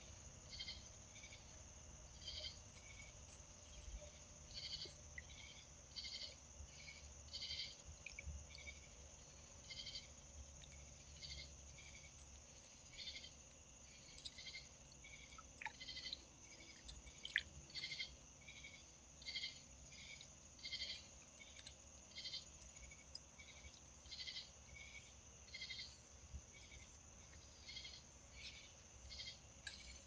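Faint night insects chirping: short high-pitched chirps repeating about once or twice a second over a steady high-pitched hum, with one sharp click a little past the middle.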